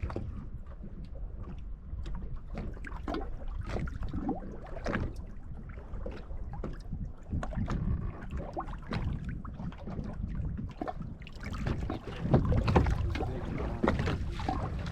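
Wind on the microphone and low water noise around a small fishing boat, with scattered short knocks and clicks of handling. About twelve seconds in, a louder, hissier stretch begins.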